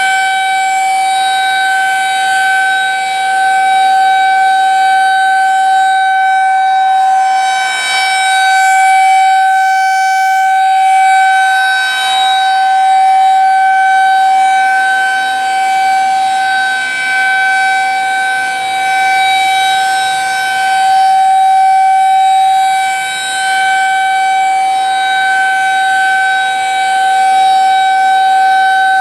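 Federal Signal 2001-SRNB rotating electromechanical outdoor warning siren sounding a steady single-tone alert during a test. The pitch holds steady while the loudness swells and fades every few seconds as the siren head rotates.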